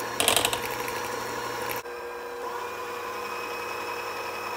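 Five-speed electric hand mixer running with its wire beaters in a thin yeast-dough batter, rattling against the bowl briefly near the start. About two seconds in its sound drops and softens, then it runs on steadily.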